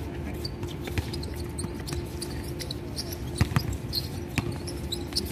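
A basketball bouncing on a court during play, irregular knocks, with a few sharper ones about three and a half to four and a half seconds in, over a steady low hum.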